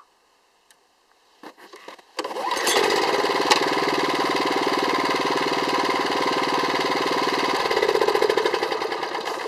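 Yanase 810HST snowblower engine starting up after repair: it catches about two seconds in and runs steadily, its note changing and its level slowly falling near the end. The machine had been without spark and its regulator before repair, so this is its start-up test.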